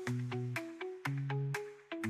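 Background music: a light melody of short, quickly struck notes in a mallet-like tone over a moving bass line.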